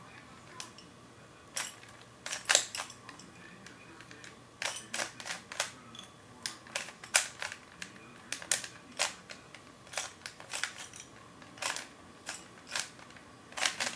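Rubik's Cube being turned by hand: sharp plastic clicks as its layers snap round, single and in quick runs at an irregular pace.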